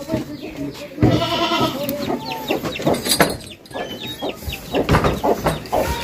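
A Beetal goat bleats: one long, loud bleat about a second in, followed by shorter animal calls.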